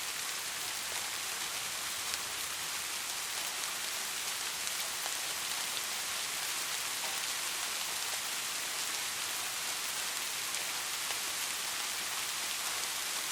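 Steady rainfall, an even hiss of many drops with faint scattered individual drop ticks. No thunder.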